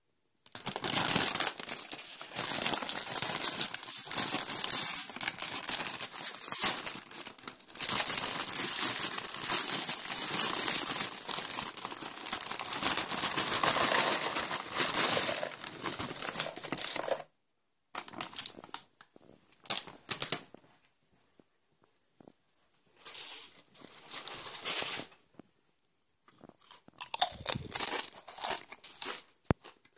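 Crinkly Doritos chip bag being torn open and handled, with tortilla chips pouring and rustling out of it into a plastic tub. The crinkling is nearly continuous for the first 17 seconds, then comes in several short bursts.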